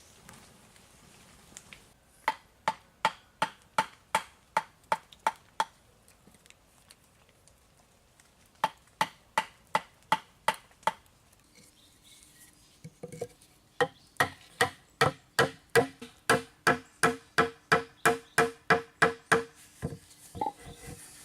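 Rhythmic knocking, about two to three sharp strikes a second, in three runs, the longest near the end with a slight ring to each strike.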